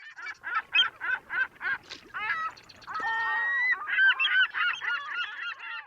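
Honking bird calls: short single honks about three a second, then from about two seconds in several calls overlapping, with one longer held call near the middle.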